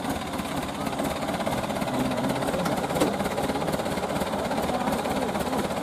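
Truck engine idling steadily, with a single sharp click about three seconds in.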